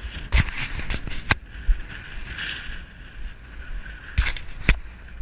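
Wind rumbling on a carried camera's microphone, with four sharp knocks: two in the first second and a half and two more about four seconds in.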